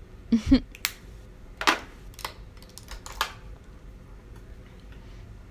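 A few short, scattered clicks and rustles over the first three seconds or so, with a brief pitched sound right at the start.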